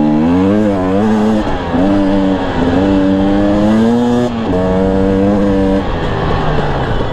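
Husqvarna TE 250i two-stroke dirt bike engine under throttle on a trail ride. Its pitch climbs and then drops back several times as the rider shifts or rolls off.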